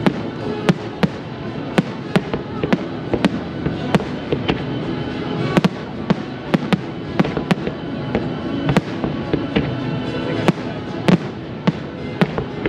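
Aerial firework shells bursting in an irregular run of sharp bangs, about two a second, with music playing underneath.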